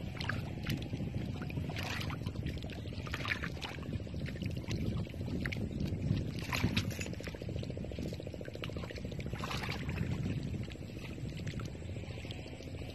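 Hands pushing rice seedlings into soft, wet paddy mud and stirring shallow water, with a few sharper splashes, over a steady low rumble.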